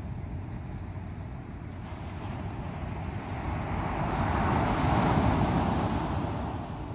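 Sea waves on the shore: a steady low surf rumble, with one wave swelling from about two seconds in, crashing loudest about five seconds in and washing away near the end.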